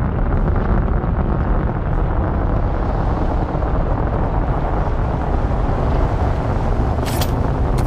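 Film sound design of a giant sandworm moving under the desert, a loud steady low rumble of churning, rushing sand. Two short crisp hisses come near the end.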